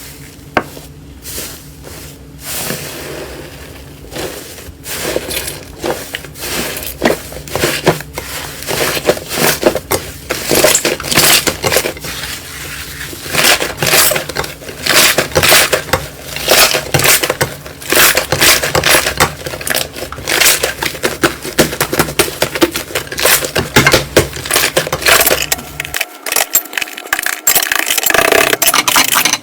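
Slime being squeezed and pressed by hand, making dense, irregular crackling and popping, with a faint steady hum underneath that stops near the end.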